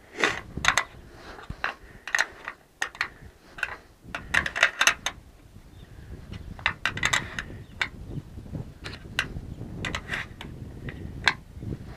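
Small steel wrench clinking on a drip-rail screw head and the metal drip rail as the screw is turned a little at a time, in clusters of sharp metal clicks. It is being snugged gently into thin sheet metal.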